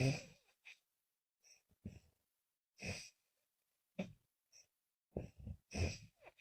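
A sleeping woman snoring on both the in-breath and the out-breath, in short, separate, effortful breaths: the loudest comes right at the start, and a quick run of pulses comes about five seconds in, with dead silence between breaths.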